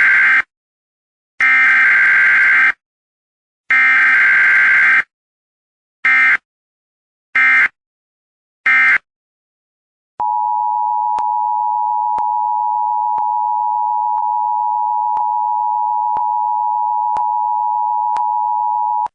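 Emergency Alert System tornado-warning alert: three long buzzy bursts of digital header data, then three shorter bursts, followed by the steady two-tone attention signal held for about nine seconds. It announces that a warning message is about to be read.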